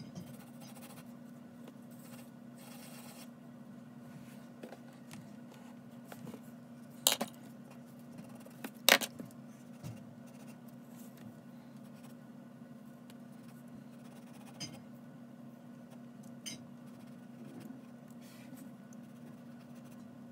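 Graphite pencil sketching on paper: faint scratching strokes over a steady low hum. Two sharp clicks about two seconds apart near the middle stand out as the loudest sounds.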